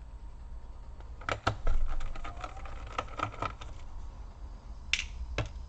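A run of small clicks and taps from about a second in, with two more near the end: a screwdriver and small screws clicking against a laptop's plastic case as the screws come out.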